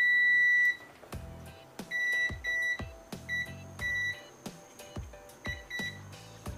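Digital multimeter's continuity buzzer beeping as its probes touch the legs of the power supply's switching transistors: one long high-pitched beep at the start, then about six short beeps spread through the rest. The beeps show shorts across the damaged transistors. Background music plays underneath.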